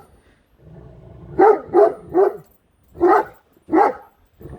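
Great Dane barking: three deep barks in quick succession about a second and a half in, then two more spaced out. She is barking in alarm at an unfamiliar object in her path.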